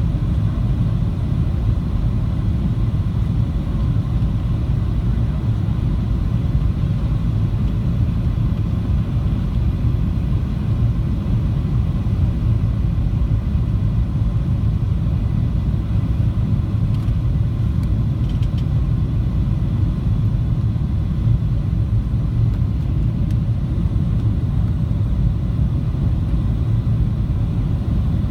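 Steady low rumble of engine and airflow noise inside the cabin of a Boeing 737-700 with CFM56-7B engines, even in level throughout.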